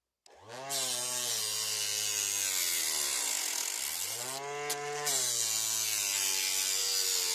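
Homemade table saw with an abrasive disc in place of a blade, its motor starting up about a third of a second in and running loud with a strong high hiss. The pitch sags and briefly drops out near the middle, then climbs back and holds.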